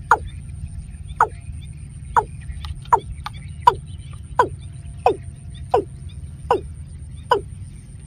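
Watercock calling: a steady series of short falling notes, about one every three-quarters of a second.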